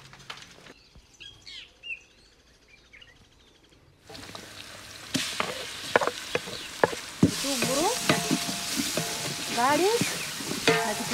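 Faint bird chirps over a quiet wood fire. About four seconds in, chopped onions sizzle in hot oil in a large aluminium pot. The sizzling grows louder as more chopped ingredients are tipped in, while a wooden spoon stirs and scrapes against the pot with clicks and squeaks.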